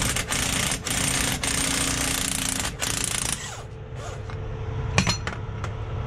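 A power tool, most like an air impact wrench, rattles in several bursts for about three and a half seconds while working the drive line loose at the U-joint, then stops. A single sharp knock follows about five seconds in.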